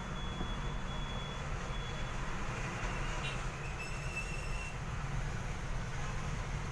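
Steady low rumbling background noise with an even hiss above it, and a few faint short high tones about four seconds in.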